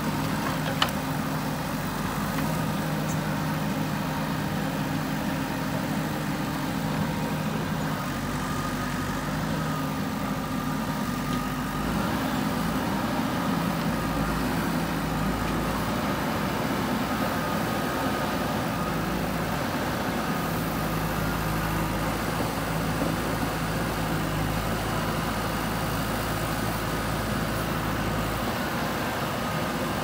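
JCB 3DX backhoe loader's diesel engine running steadily as the backhoe digs, with a short sharp click about a second in.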